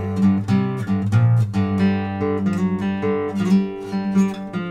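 Acoustic guitar strummed in a steady rhythm, its chords ringing on in an instrumental passage of the song.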